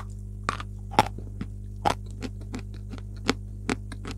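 Dry Everest chalk being crunched and chewed in the mouth close to a lapel microphone: sharp, irregular crunches, about two or three a second.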